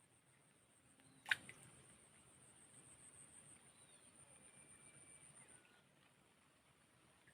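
Near silence, with a faint, high, rapidly pulsing buzz that fades out near the end, and one sharp click a little over a second in.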